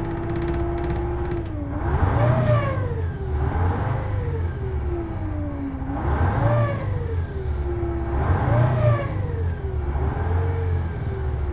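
A small engine running, steady for a second or so, then its speed surging up quickly and sinking back slowly about every two seconds, over and over. This is the odd sound it makes after starting up.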